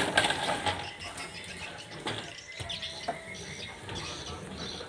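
Plastic ride-on toy car rattling and clattering over the floor as a toddler pushes it along, loudest in the first moment.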